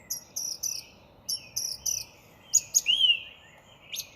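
Songbird singing outdoors: quick repeated runs of short, high chirps, then a few lower whistled slurs.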